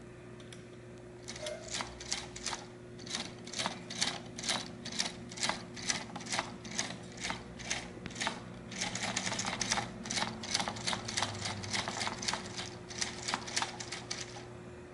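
Plastic Lego Technic steering mechanism clicking as it is turned by hand through its rear steering knob, about two clicks a second with a faster run in the middle, over a steady low hum.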